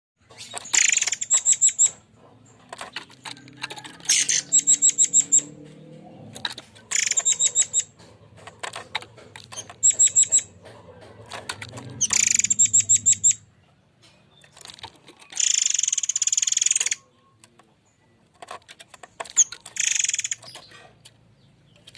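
Murai air mancur bird singing its harsh 'tembakan kasar' phrases: loud, high rattling bursts of rapid notes, each lasting a second or two, repeated every few seconds.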